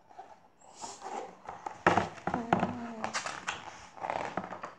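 Paper pages of a large picture book being handled and turned: rustling paper with sharp crackles, loudest about two seconds in. A short low hum-like tone sounds about halfway through.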